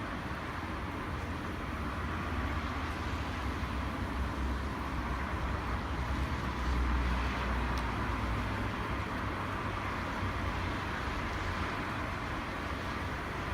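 Campfire burning with a steady hiss and a single faint crackle a little past the middle, over a steady low rumble of background noise.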